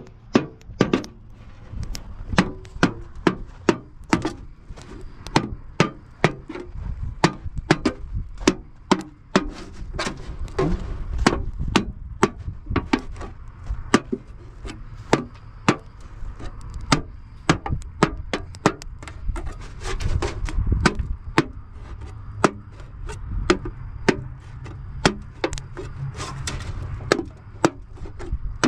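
Repeated sharp chopping blows on wood, about two a second, kept up steadily, over a low rumble.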